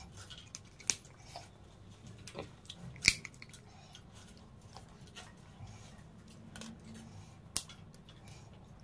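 Crab shell cracking as legs and claws are bitten and broken open, with chewing between. Three sharp cracks stand out, the loudest about three seconds in.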